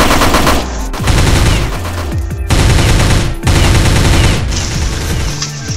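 Several long bursts of rapid automatic gunfire, about four in a row with short breaks between them, over background music with a steady low bass.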